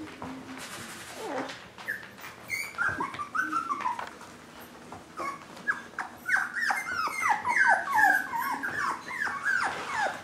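Five-week-old mini Swiss Mountain Doodle puppies whining and yipping: a few short cries that drop in pitch, then a quick run of them through the second half.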